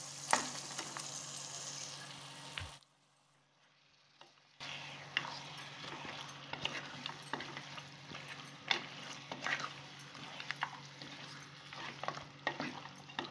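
Onion-tomato masala frying and sizzling in an aluminium pressure cooker, stirred with a wooden spatula that scrapes and clicks against the pot. It breaks off for about two seconds of near silence around three seconds in, then the raw mutton pieces sizzle as they are stirred into the masala.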